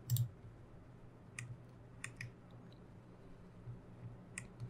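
About six scattered, faint clicks of a computer mouse and keys, the loudest just after the start and a close pair about two seconds in, over a faint low steady hum.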